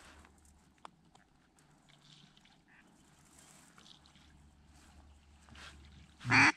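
Quiet marsh with a few soft, scattered quacks, then one short, loud duck quack close by near the end.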